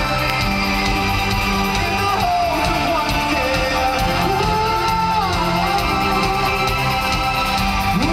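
Live rock band playing loud and steady: electric guitars and bass over drums, with a gliding tone that falls in pitch a couple of times.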